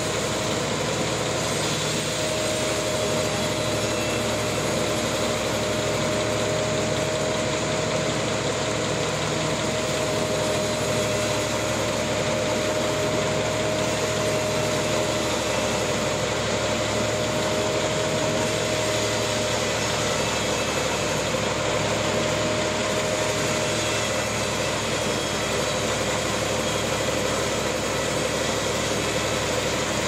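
Large band sawmill running, its blade cutting through a wide trembesi (rain tree) slab: a steady mechanical drone with a constant whine.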